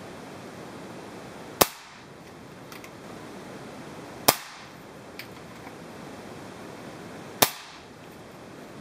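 Three shots from a .22 Benjamin Marauder air pistol, each a single sharp crack, about three seconds apart, with fainter clicks between them.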